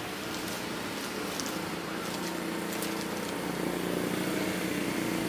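Street traffic: a motor vehicle's engine running steadily, growing louder from about two seconds in.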